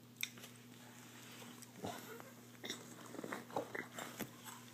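A toddler eating small crackers straight off a leather couch with his mouth, no hands: a run of short, irregular smacking and snuffling mouth noises close to the microphone, with a sharp click just after the start.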